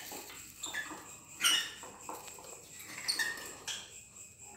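Dry shredded nesting material rustling and scratching as a hand works in a woven basket of it, in several short bursts.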